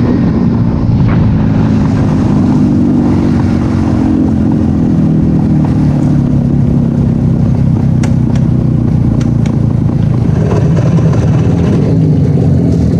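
Motorcycle engine running steadily, its pitch sinking slightly a few seconds in.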